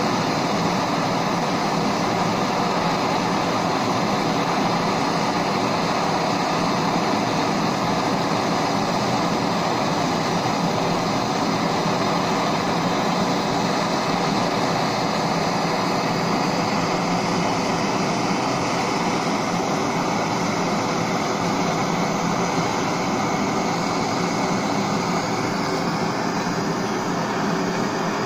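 Handheld gas blowtorch burning with a steady hiss, its flame heating the cast cylinder of a seized engine block.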